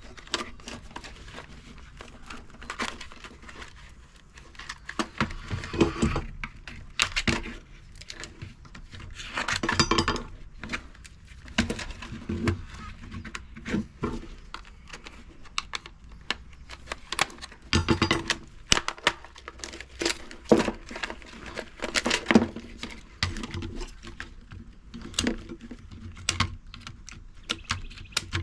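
Irregular clicks, knocks and clatter of hand tools and loose plastic and metal parts as a washing machine is dismantled by hand, with a longer scraping rattle about ten seconds in.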